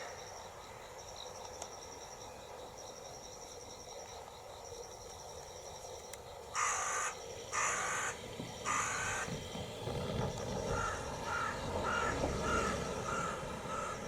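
A crow caws three times, loud and harsh, about halfway through. After that a level-crossing warning bell dings faintly about twice a second over a low rumble that builds toward the end.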